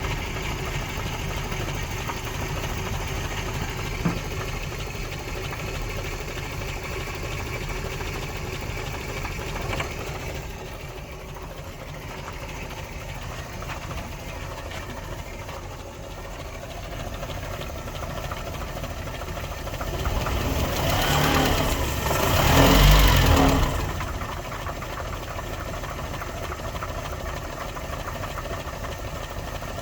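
Land Rover Series III engine idling unevenly, the intermittent misfire it is being filmed for. About two-thirds of the way in it gets louder for a few seconds, then settles back.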